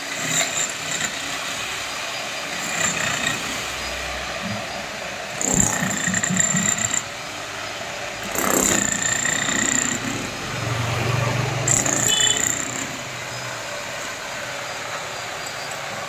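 Handheld electric breaker (demolition hammer) run in short bursts of about a second, several times, chipping at brick and concrete on the ground.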